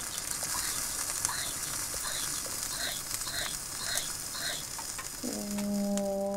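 Eggs frying in a pan, with a steady sizzle and a run of short repeated chirps over it. About five seconds in, a steady low held tone comes in.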